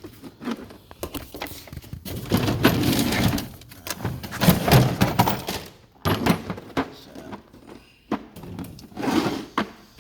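Tools and tool cases being handled in a toolbox drawer: a run of knocks and clatter, with a few longer stretches of sliding and scraping.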